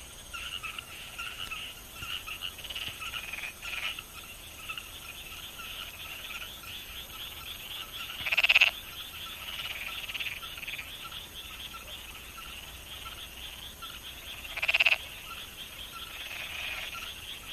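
Chorus of rice-paddy frogs: many overlapping pulsing croaks blend into a continuous trill. Twice, about eight and fifteen seconds in, a short, louder call stands out above the chorus.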